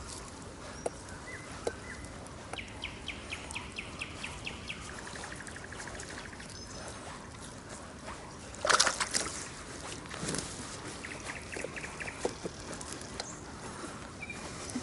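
Water trickling and dripping around a small rowing boat moving over calm water, with one louder splash of water about nine seconds in. A bird calls twice in a quick run of short repeated notes, about five a second.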